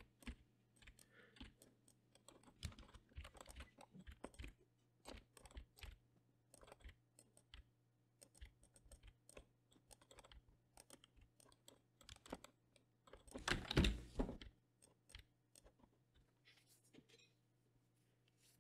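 Computer keyboard keys and mouse buttons clicked in scattered taps as shortcuts are pressed. The taps are faint, with a denser, louder run of clicks about fourteen seconds in, over a faint steady hum.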